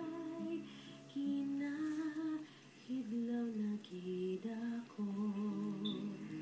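A woman's voice humming a slow, lullaby-like melody in held notes, as a drama's background score, heard through a TV speaker.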